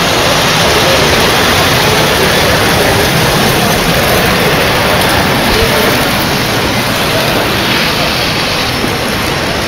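Steady loud rumbling din of several O-gauge model trains rolling on three-rail metal track.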